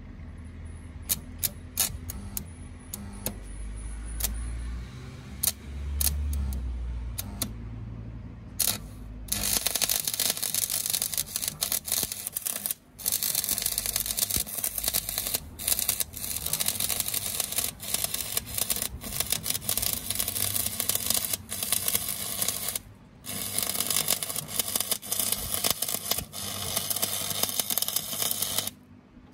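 Stick (SMAW) welding with a 2.5 mm electrode. First come scattered sharp taps and scratches as the rod is struck on the work to start the arc. About a third of the way in the arc catches and runs with a dense, steady crackle, breaking off briefly twice and stopping just before the end.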